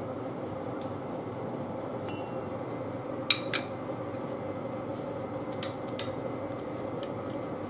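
Scattered light metallic clinks and taps from hand tools against a lathe steady rest while its fingers are being adjusted. Two come about halfway through and a quicker cluster follows near the end, over a steady shop hum.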